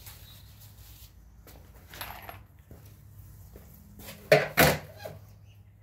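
Two sharp knocks on wood in quick succession, a little after four seconds in, preceded by a few faint clicks and taps.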